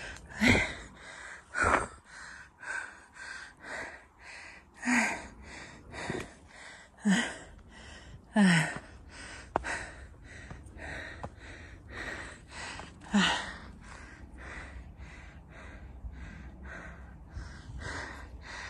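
A hiker panting hard while climbing a steep trail, breathing in and out about twice a second, with a few louder voiced gasps.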